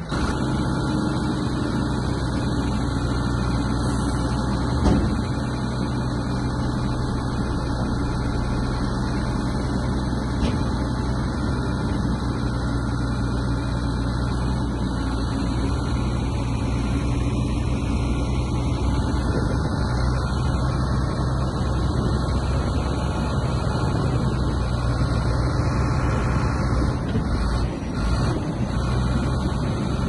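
Heavy diesel engine of an earth-moving machine (bulldozer or dump truck) running steadily, with a single thump about five seconds in.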